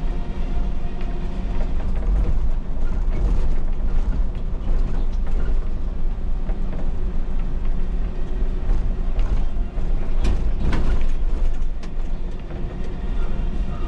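MAN Lion's City city bus driving, heard from the driver's cab: a steady engine and road rumble with the interior panels rattling and creaking, and a cluster of sharper knocks about ten seconds in.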